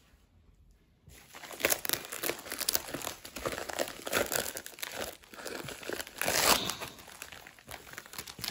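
Plastic bubble wrap crinkling and crackling as it is pulled and peeled off a stack of boxed albums, starting about a second in. The wrap is hard to get off and is loudest near the middle.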